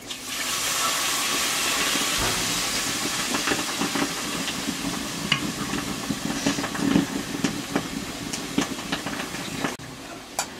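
Water poured into a hot iron wok of frying nettle curry: a sudden loud hiss of steam that settles into a steady sizzle with crackles and pops, cutting off near the end.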